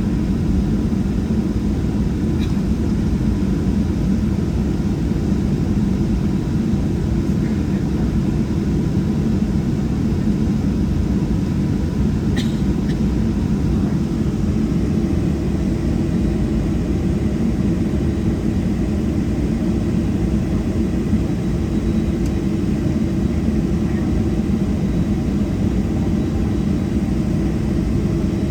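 Steady cabin noise of a Boeing 737-700 taxiing, its CFM56-7B engines running at taxi power as an even low rumble. There are two faint brief ticks, one a couple of seconds in and one about halfway.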